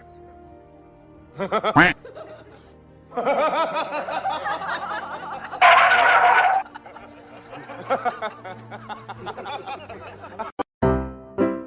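Background music with people laughing and chuckling over it, loudest briefly about six seconds in.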